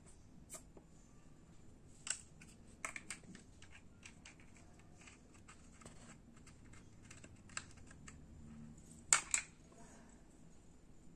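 Small plastic makeup cases and a lipstick tube being handled and clicked, with scattered light clicks and taps; the loudest is a quick pair of clacks about nine seconds in.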